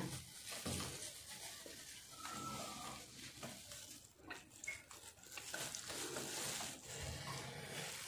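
Faint rubbing and rustling of a cloth wiping a refrigerator door's rubber gasket clean, with a few light knocks.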